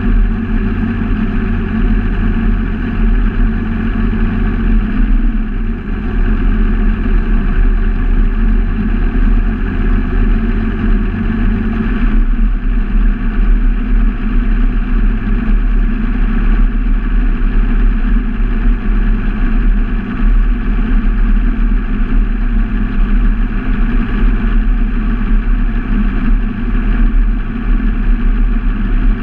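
Outboard motor of an Allison XB2002 performance boat running steadily at low cruising speed. Its low tone shifts a little about twelve seconds in.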